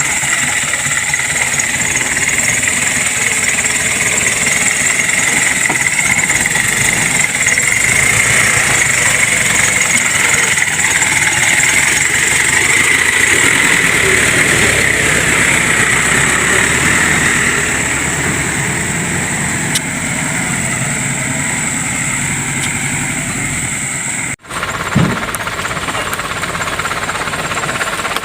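Engine of a palm-fruit hauling vehicle running steadily. There is a momentary dropout near the end, followed by a short thump.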